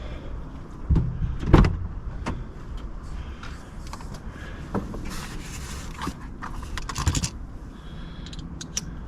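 Scattered knocks, clicks and rattles of hand tools and trim pieces being handled inside a car's cabin, over a steady low background rumble.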